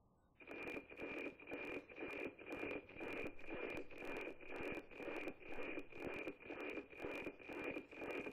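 NOAA-18 weather satellite APT signal at 137.9125 MHz, played through an ICOM IC-9100 receiver: a steady high tone beating in the typical tick-tock rhythm of about two pulses a second as image lines come in. It drops out briefly right at the start.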